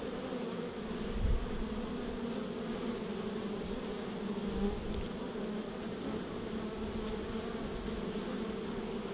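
Many honey bees buzzing at a hive entrance: a steady, even drone of wingbeats. A brief low thump about a second in.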